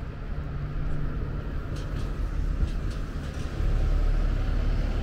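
Steady low rumble of a moving vehicle, which grows louder about three and a half seconds in.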